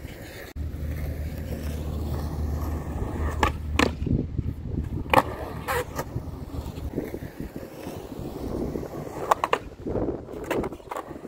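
Skateboard wheels rolling on smooth concrete with a steady low rumble. Sharp wooden clacks of the deck and tail striking the ground as tricks are popped and landed come several in a row around the middle and again near the end.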